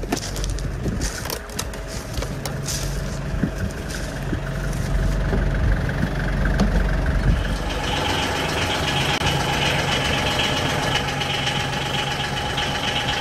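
A vehicle engine running steadily, with scattered clicks and knocks over the first few seconds. A steady higher whine joins about eight seconds in.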